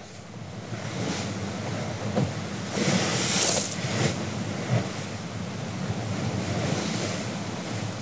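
Bow wave of a Thames sailing barge rushing and splashing as the hull drives through the water in a force 5 wind, with wind noise on the microphone. The sound fades in over the first second, a louder surge of spray comes about three seconds in, and there are a few short slaps.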